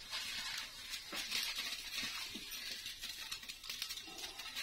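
Cooking oil heating in a kadhai: a faint, steady hiss with a few light ticks.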